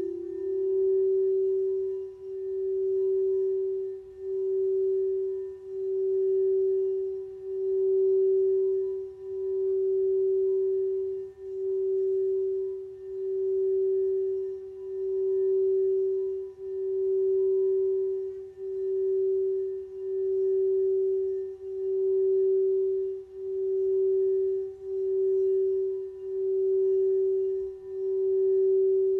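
Singing bowl sustaining one steady note with faint higher overtones. Its sound swells and fades in a slow, even pulse, roughly every second and a half to two seconds.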